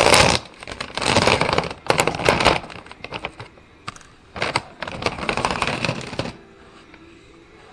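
Rustling and rattling of a bag of bird seed being handled, with loose seed clattering, in about five bursts. It stops about six seconds in, leaving only a faint low hum.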